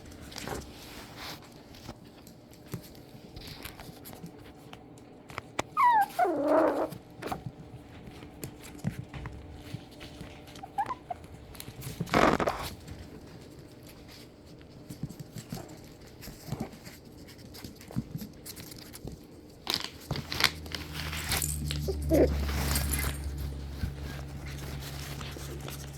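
Yorkshire terrier puppies whimpering, with a couple of high whines that fall in pitch and scattered small clicks and knocks. A low steady hum comes in near the end.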